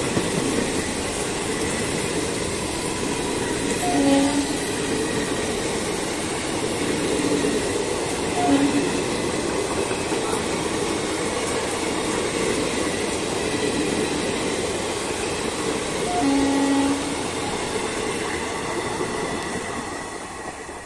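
Indian Railways express passenger coaches rushing past at speed: a steady rumble and rattle of wheels on the track, with three short tones about four, eight and sixteen seconds in. The noise fades near the end as the last coach goes by.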